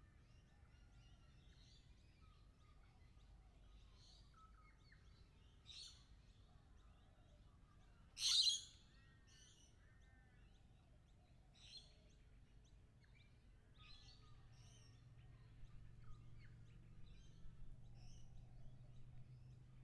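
A flock of lorikeets chattering with many quick, high chirps and short calls. One loud, harsh screech comes about eight seconds in, with shorter screeches near six and twelve seconds, and the calling grows busier toward the end.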